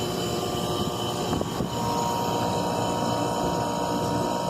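2007 Carrier heat pump outdoor unit running with its compressor on: a steady drone with a thin, constant high whine. The unit is frozen solid with thick ice, which the owner takes as the sign that the heat pump is failing.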